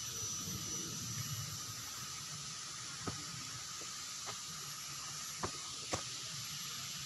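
Steady hiss of outdoor ambience with a faint low rumble at first. From about three seconds in come four or five sharp, irregularly spaced ticks.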